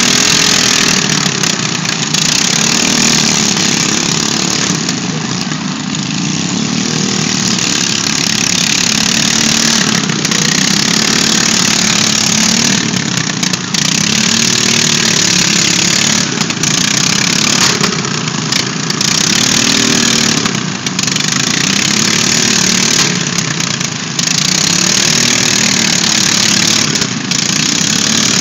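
Small riding lawn mower engines running and revving, their pitch rising and falling again and again, over a loud steady wash of noise.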